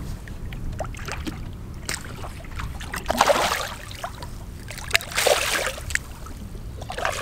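Choppy water lapping and slapping against a boat hull with a steady low wind rumble, broken by two louder splashes about two seconds apart.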